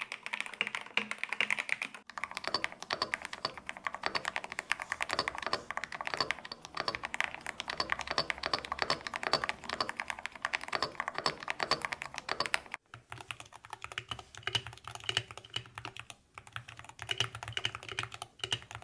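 Rapid-trigger gaming keyboards being typed on quickly, a dense run of keystroke clacks. The tone of the keystrokes changes abruptly about two seconds in and again about two-thirds of the way through, as one keyboard gives way to another.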